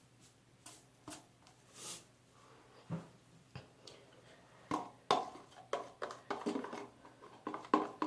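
Handling sounds of salt being added to a dish-soap mixture and stirred in a small container: scattered clicks, a brief rush near two seconds, then a quicker run of knocks and scrapes from about five seconds in.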